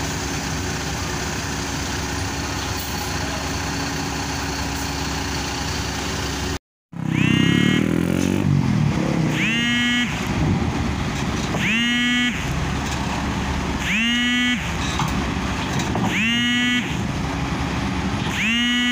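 Mercedes-Benz OH 1626 bus's diesel engine running at low speed as the bus creeps up the ferry's loading ramp. After a brief break a little over a third of the way in, a pitched tone with a rising sweep repeats about every two seconds over the engine.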